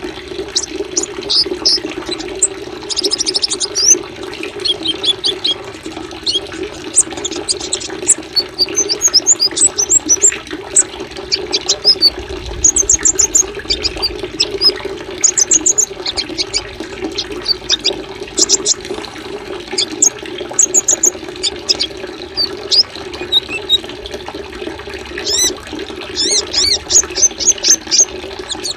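Small songbirds giving rapid high chirps and trills in quick clusters, recorded as a masteran (song-tutoring track), over a steady sound of running water.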